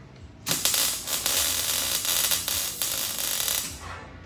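Electric welding arc crackling and hissing in one continuous bead of about three seconds, starting about half a second in, as steel chassis tubing is welded.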